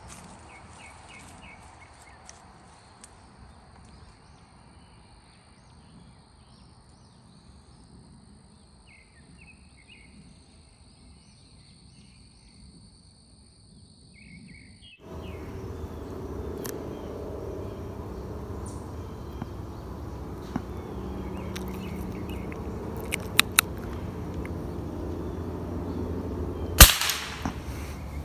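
A single sharp shot from a scoped hunting rifle near the end, the loudest thing here. Before it there is quiet woodland background with a steady high whine and a few faint chirps, and from about halfway in a louder wind-like rush.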